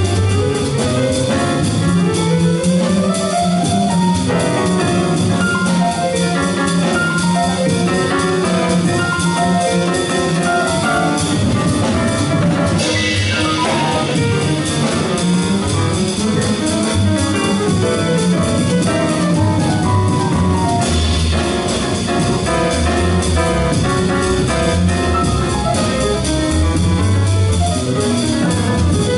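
Small jazz group playing live: acoustic grand piano, upright bass and drum kit, with a horn. A steady bass line runs under the piano, and the cymbals swell up twice, about 13 seconds in and again about 21 seconds in.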